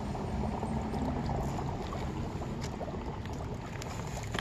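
Dry ice bubbling in a plastic tub of water: a steady gurgling with a few faint clicks.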